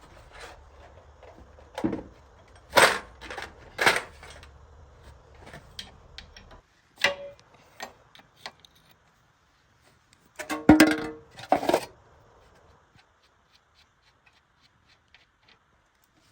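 Metal tools and parts clinking and knocking during hands-on repair work: a string of sharp clanks, loudest about three and four seconds in and in a cluster about eleven seconds in, then a few faint ticks. A low hum under the first part cuts off about six and a half seconds in.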